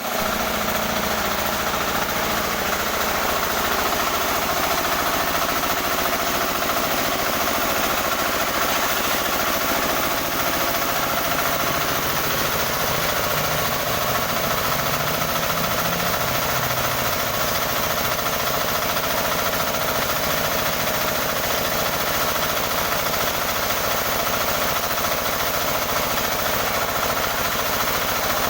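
Newly assembled sawmill machine running steadily on test, its engine beating fast and evenly with a few steady tones over it.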